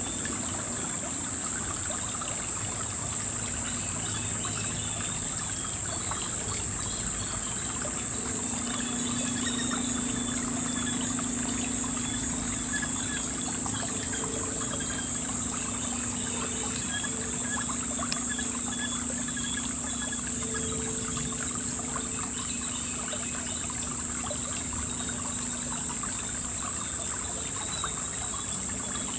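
Shallow river water trickling over stones, under a steady high-pitched drone of insects. A low hum comes in about eight seconds in and fades out near the end.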